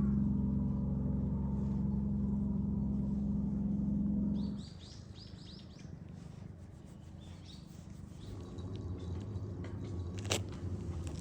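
A steady low engine hum stops abruptly about four and a half seconds in, followed at once by a quick run of small bird chirps. A lower hum builds again later, with a single sharp click near the end.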